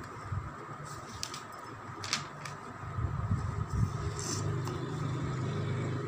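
A low mechanical hum, like an engine running nearby, that grows louder about three seconds in. A few light clicks and rustles from the notebook and pen being handled come over it.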